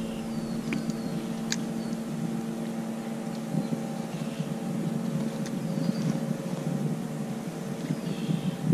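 Steady low hum of a boat's motor, holding one pitch, with a few faint ticks and short high chirps over it.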